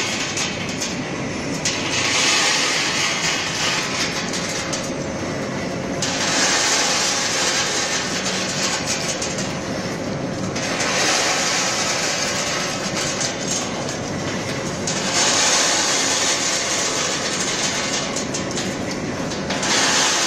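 Industrial continuous peanut fryer running: hot oil sizzling with a hiss that swells and fades every few seconds, over the steady noise and fine clicking of the mesh conveyor machinery.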